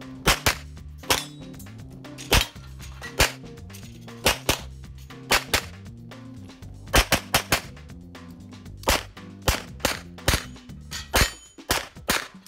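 Canik TP9 SFx 9mm pistol firing rapidly in a competition stage: sharp shots, often in quick pairs, in short irregular strings with brief pauses as the shooter moves between positions.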